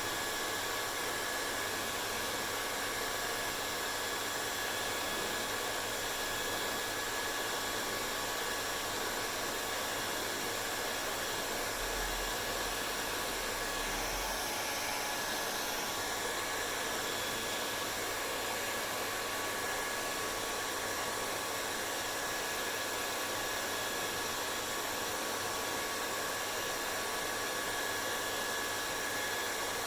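Hair dryer running steadily: an even rush of blown air with a faint steady whine in it, unchanging throughout.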